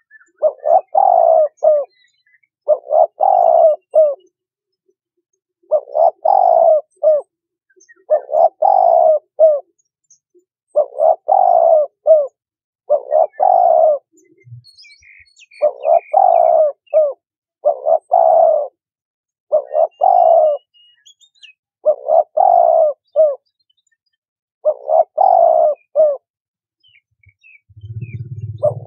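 Spotted dove cooing: the same multi-note cooing phrase repeated about eleven times, one every two to three seconds.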